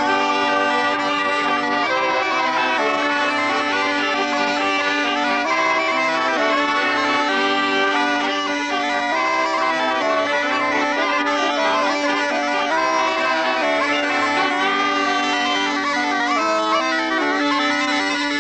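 Bagpipe music: a held low note under a lively melody that changes notes often, playing without a break.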